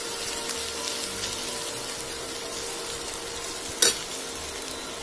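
Sliced ivy gourd sizzling as it fries in oil on high heat in a steel kadhai, stirred with a steel spoon. Just before four seconds in, one sharp clack of the spoon against the pan.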